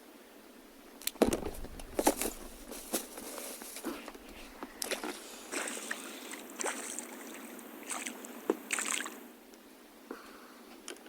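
Water sloshing and splashing, mixed with sharp clicks and knocks, starting about a second in and dying down near the end.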